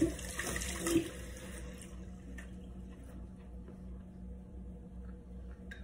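Quiet kitchen room tone with a steady low hum, a soft hiss in the first couple of seconds, and a couple of small soft knocks near the start.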